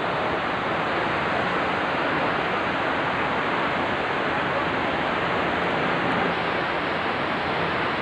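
Niagara Falls' water rushing in a steady, unbroken wash of noise as it pours over the falls and churns below.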